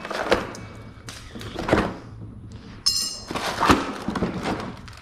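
Unboxing sounds from a garage door opener's cardboard and molded pulp packing: parts being lifted out and set down, giving a few separate knocks and thunks, with a brief high scraping sound about three seconds in.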